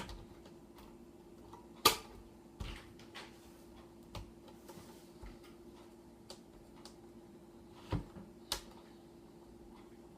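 Small screwdriver and tiny screws clicking and tapping against a laptop's LCD panel and its metal mounting harness as a screw is worked into place. The taps are scattered and irregular, a sharp one about two seconds in and two more close together near the end, over a faint steady hum.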